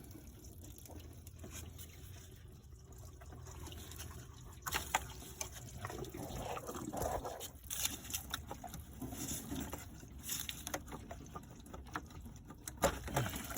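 Water coolant trickling and dribbling from a car's radiator hose as the hose is worked off, with scattered clicks and knocks of the hose and fittings being handled from about five seconds in.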